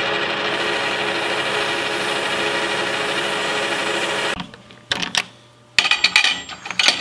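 Metal lathe spinning a steel part while emery cloth is held against it to polish it: a steady whir with several fixed tones under a rubbing hiss, which stops about four seconds in. Then a few sharp clicks and knocks as the part is handled in the four-jaw chuck.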